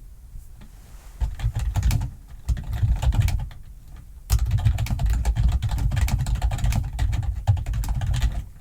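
Fast typing on a computer keyboard, the keystrokes deep and low. Two short bursts of typing come first, then steady typing from about four seconds in.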